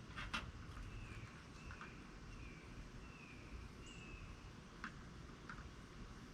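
A bird calling faintly: a short falling whistled note repeated about five times, with a few soft clicks.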